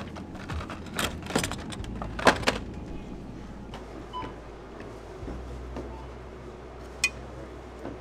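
A few sharp clicks and knocks in the first two and a half seconds and one more about seven seconds in, over a low steady hum.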